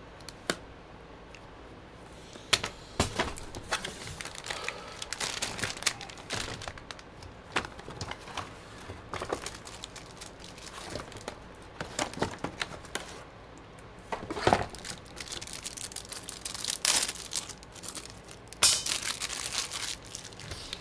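Unboxing a motherboard: the cardboard box and its inserts are handled, and the board's anti-static bag crinkles. It comes as an irregular run of rustles, crinkles and light knocks, with a few louder bursts.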